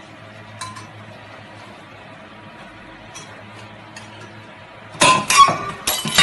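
A spoon clinking faintly against a metal bowl over a steady low hum, then loud sharp hits and a dense clatter near the end.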